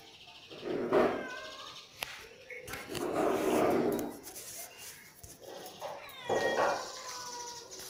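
An animal calling three times: a short call about a second in, a longer one around three seconds in, and another short one about six and a half seconds in.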